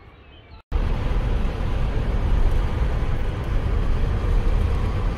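Steady rumble of a car driving, heard from inside the cabin: road and wind noise with a heavy low end, cutting in abruptly under a second in after a faint, quiet moment.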